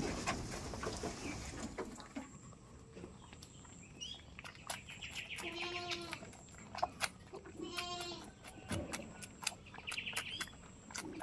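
Goats bleating, three wavering bleats a couple of seconds apart, with scattered light clicks and knocks around them.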